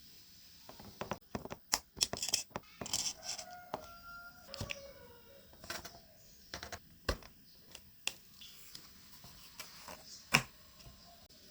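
Irregular clicks, taps and knocks of hands handling cardboard and small parts, with a few brief squeaky scrapes about three to five seconds in and one sharper knock near the end.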